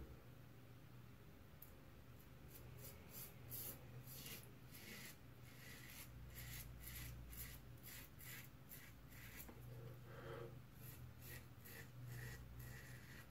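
Merkur 34C double-edge safety razor with an Astra SP blade scraping through lathered stubble in short, faint strokes, repeated a little under twice a second from about two seconds in.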